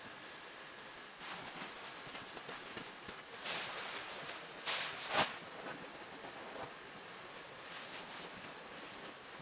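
Fabric rustling and a few sharp swishes as a cloth is handled and shaken out, over a steady background hiss.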